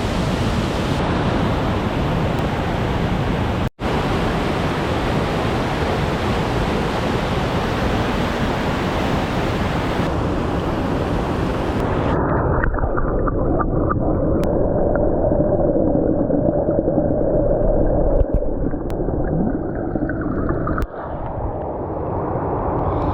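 Waterfall on a forest river rushing: a loud, steady noise of falling water. There is a brief dropout about four seconds in. From about twelve seconds on the sound turns muffled and duller, with a faint steady tone in it.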